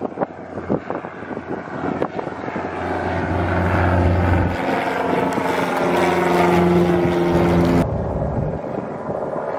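Single-engine high-wing light plane's piston engine and propeller droning as it flies over, growing louder to a peak with a sweeping, shimmering tone. The sound drops off suddenly about eight seconds in.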